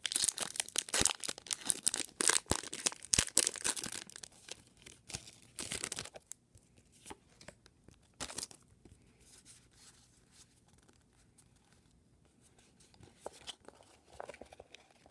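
A foil Pokémon booster pack wrapper being torn open and crinkled, a dense crackling rip with sharp snaps over the first six seconds or so. After that come only occasional soft clicks and rustles of the cards being handled.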